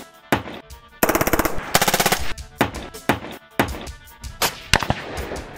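Automatic gunfire: two rapid bursts about a second and two seconds in, over music with a drum beat.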